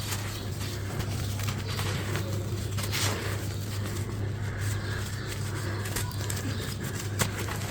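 A crunchy crumbly block being crushed and crumbled, giving many small crackles and crunches at an irregular pace, over a steady low hum.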